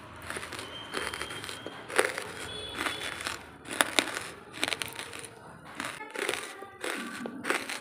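Close-miked chewing of dry charcoal lumps: irregular, brittle crunches every half-second or so, with crackling between bites.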